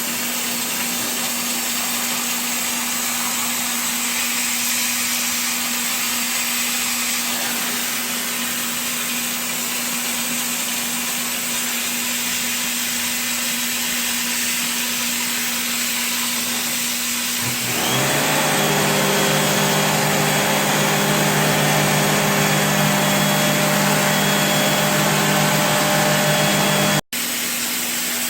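Air-conditioner cleaning equipment running: a steady hiss of spraying with a low motor hum. About 18 seconds in, a louder motor with a steady whine starts up, and it cuts off abruptly near the end.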